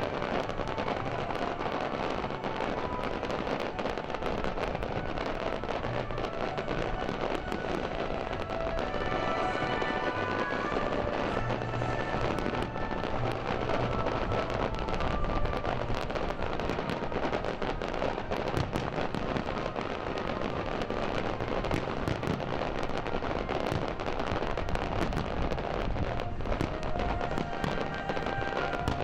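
Fireworks display: continuous crackling and popping from low-level effects, with dull thuds mixed in. Music with held notes plays alongside throughout.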